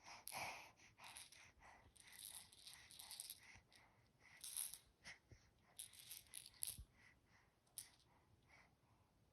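A baby's fox toy being shaken and handled: soft, irregular rattling and crinkling in many short bursts.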